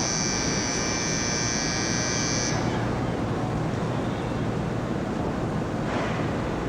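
A station platform departure bell ringing with a steady, high electric buzz for about the first two and a half seconds, then stopping, over a steady low hum and murmur from the Shinkansen platform.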